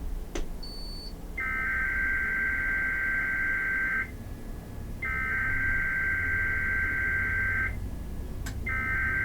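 NOAA Weather Radio SAME header from station KIG86 Columbus, Ohio, sent for a Required Weekly Test: three bursts of digital data tones, each about two and a half seconds long, with a pause of about a second between them. The third burst runs on past the end. A single click comes just before the first burst.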